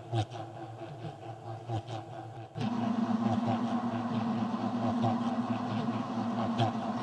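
Electronic tones from loudspeakers mounted on spinning arms: a steady hum of several pitches that swells each time a speaker sweeps past, about every one and a half seconds. About two and a half seconds in, the sound changes suddenly and a louder steady low tone joins in.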